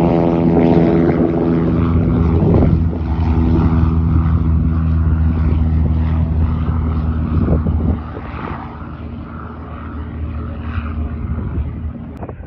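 High-wing single-engine propeller plane climbing away, its piston engine and propeller making a loud, steady drone. The drone drops off sharply about eight seconds in and fades as the plane pulls away.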